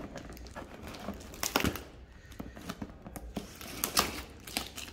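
Scissors cutting through brown packing tape along the seam of a cardboard box: irregular clicks, snips and crackling of tape, with two louder scrapes about a second and a half in and again about four seconds in.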